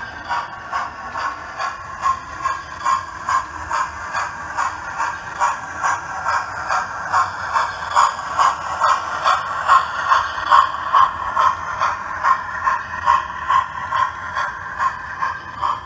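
Model train, a blue streamlined A4-style steam locomotive hauling coaches, running past with a steady rhythmic beat of about two to three pulses a second. The beat is loudest about halfway through.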